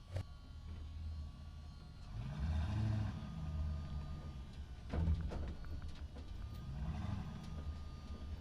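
Cartoon vehicle engine sound effect running steadily, revving up and settling back twice, with a knock just after the start and another about five seconds in.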